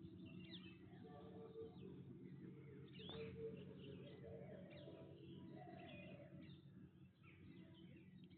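Faint birds chirping in the background, many short scattered chirps over a low steady hum.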